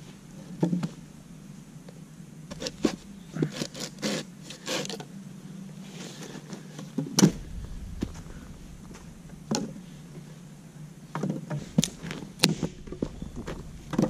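Dry dead branches being broken by hand and underfoot for firewood: a series of sharp cracks and snaps with rustling of dry leaf litter, the loudest crack about seven seconds in.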